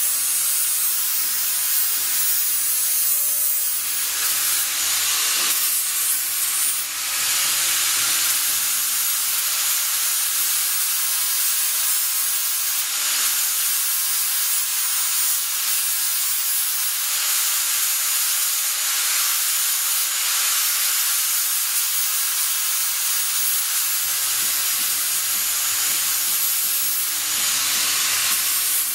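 Small hand grinder with an abrasive disc smoothing the cut edge of a sheet-steel panel, giving a steady, hissing grind.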